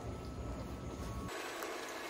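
Faint, steady background noise with no distinct sound events. The background changes abruptly just over a second in, as at an edit.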